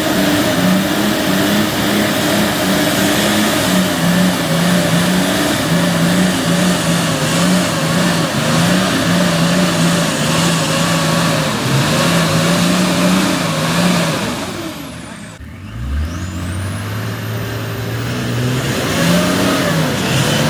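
4WD engine revving up and down in repeated bursts as the twin-locked truck on 37-inch tyres struggles for grip on a wet, slippery rock climb. About fifteen seconds in the level drops briefly, then a lower engine note rises before the revving resumes.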